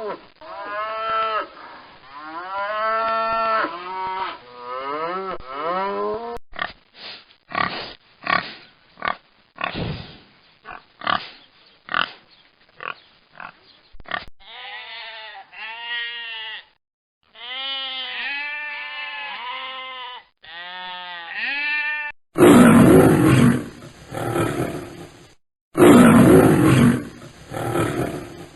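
A run of different animal calls, one recording after another: repeated pitched calls, then a string of short grunts, then more pitched calls. About 22 seconds in, loud, rough roars take over.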